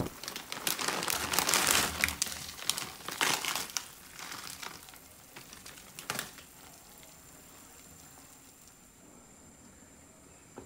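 Pot of water boiling with blocks of dried ramen noodles in it: an irregular crackling bubbling, fairly loud for the first few seconds, then fading to a faint hiss, with a single click about six seconds in.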